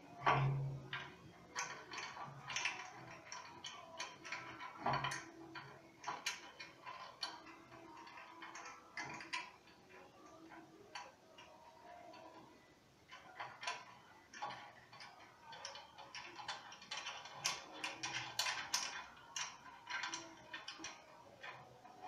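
Small metallic clicks and taps of a bolt being fitted and turned by hand in a washing-machine motor's steel mounting bracket, with a louder knock at the start as the motor is set against the bracket.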